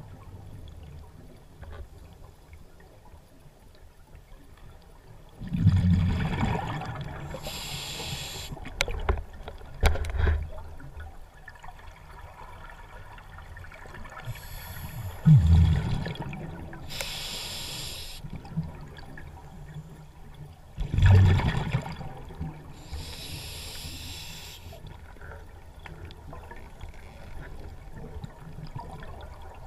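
Scuba regulator breathing underwater. Three times, a loud low rumble of exhaled bubbles is followed about two seconds later by the high hiss of an inhale through the regulator, about every seven to eight seconds. A few soft clicks come in the middle.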